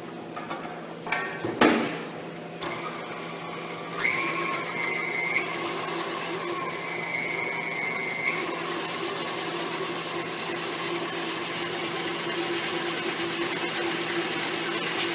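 Electric mixer beating egg whites to stiff peaks: it starts about four seconds in and runs steadily with a high whine. A few knocks come before it starts.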